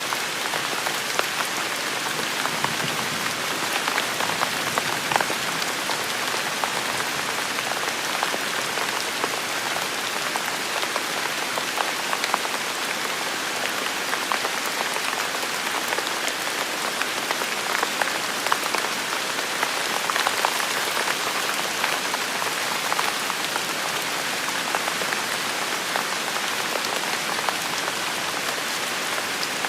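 Steady rain falling on hard surfaces, with a dense patter of individual drops.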